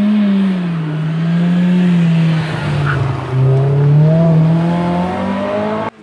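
Rally car engine pulling hard, its revs sagging and then holding steady. About three seconds in the sound drops away briefly, then the revs climb steadily until the sound cuts off abruptly just before the end.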